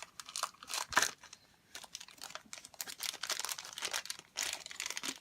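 A toy surprise packet being crinkled and torn open by hand: irregular crackling of a plastic wrapper, with one sharp snap about a second in.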